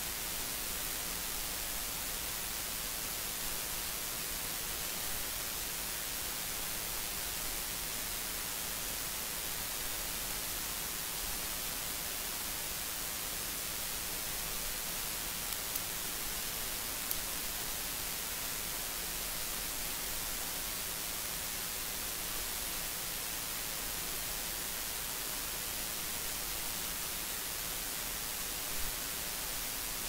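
Steady hiss of a recording's noise floor, with a faint low hum and a few small clicks late on.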